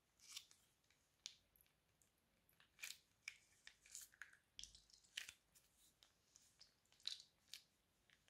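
Faint, irregular crackles and small clicks as glitter slime is squeezed out of a plastic piping bag onto slime: the bag's plastic crinkling and the slime squishing and popping.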